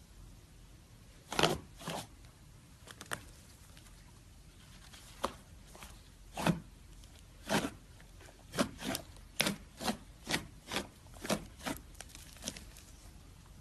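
Slime being squeezed and poked by hand, making short, irregular pops and clicks, about a dozen of them, starting about a second in.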